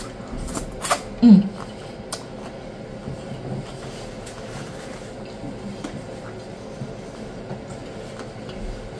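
Close-miked biting and chewing of a birria taco: a few sharp crunches in the first second, a short hum of the mouth, then softer chewing over steady low background noise.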